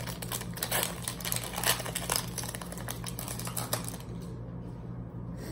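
Foil wrapper of a Pokémon card booster pack being torn open and crinkled: a quick run of crackles and clicks for about four seconds, then quieter handling, over a low steady hum.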